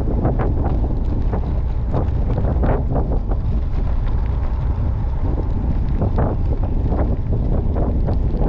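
Wind buffeting the microphone of a camera on a moving gravel bike: a steady low rumble with scattered short crackles.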